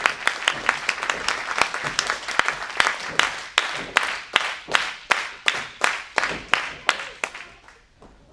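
Audience clapping in unison in a steady rhythm of about two claps a second, tailing off near the end.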